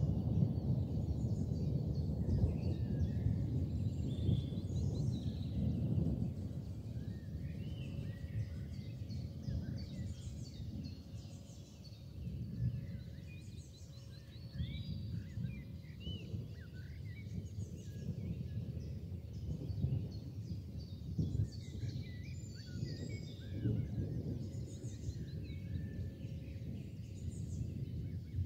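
Small birds chirping over a low, fluctuating rumble of outdoor noise that is loudest for the first six seconds or so.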